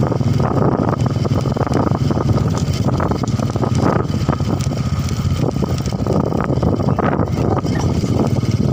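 Motorcycle engine running steadily at cruising speed while riding, with wind rushing over the microphone.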